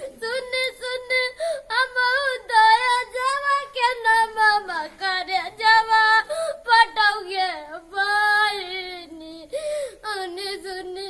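A boy singing a sad folk song in a high voice with vibrato, holding and bending long notes, without instruments.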